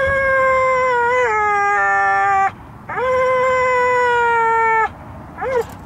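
Pit bull dog howling: two long, steady howls of about two seconds each, the first dropping a little in pitch partway through, then a short yip near the end.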